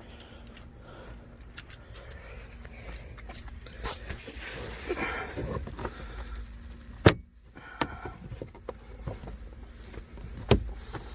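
Plastic interior trim and fasteners being handled and pried in a pickup cab, with a few sharp clicks. The loudest click comes about seven seconds in; the others come about four seconds in and near the end.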